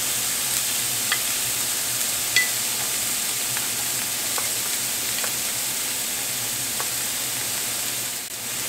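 Diced onions sizzling steadily in olive oil and butter in a frying pan over medium heat, with a few faint clicks scattered through.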